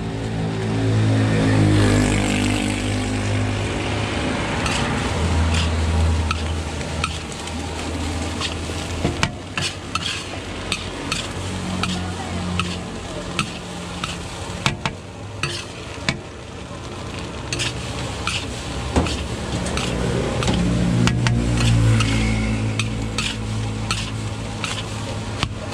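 Fried rice being stir-fried in a large steel wok: a metal spatula scraping and tossing the rice over sizzling, with many sharp clanks of the spatula against the wok from about a third of the way in. A low rumble swells near the start and again near the end.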